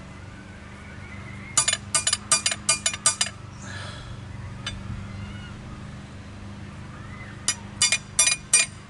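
Hammer blows on the bent metal tie rod of a Craftsman L3000 riding mower, laid over a cement-filled iron post to straighten its bow: a quick run of about six ringing metal-on-metal strikes, a pause, then four more near the end.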